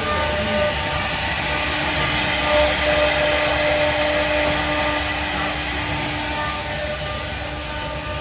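CNC router running: a steady machine noise, a broad hiss with a steady whine on top.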